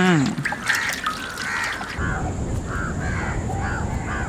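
A bird calling over and over, short harsh calls about two a second, starting about two seconds in. A steady low noise comes in abruptly at the same moment.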